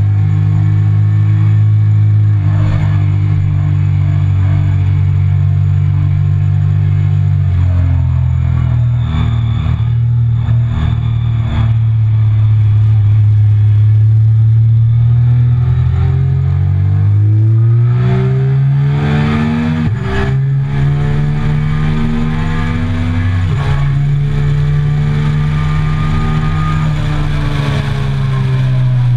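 Triumph Speed Triple 1050's inline three-cylinder engine under way on a race track: steady revs at first, then dropping in pitch as the bike slows for a corner about a quarter of the way in. From about halfway it revs hard as the bike accelerates onto the straight, the rising pitch broken by upshifts about two-thirds of the way through and again shortly after.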